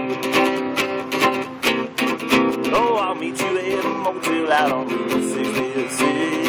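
Acoustic guitar being strummed, chords ringing in a steady rhythm.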